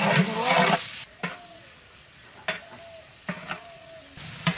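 Chopped onion and green chillies sizzling in hot oil as they are stirred in a pan. The sizzling drops away about a second in, leaving four sharp knocks of a spatula on the metal pan, each with a short ring, before the frying noise returns near the end.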